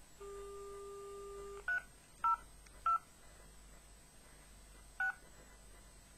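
Telephone dial tone for about a second and a half, then four keypad beeps as a number is dialled, unevenly spaced, with a longer gap before the last.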